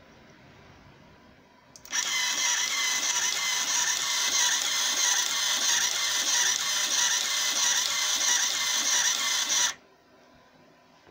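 R2Z5000 thermal printer's mechanism printing a graphic, its paper-feed stepper motor running as the paper advances. It starts suddenly about two seconds in, runs evenly for about eight seconds, and cuts off abruptly.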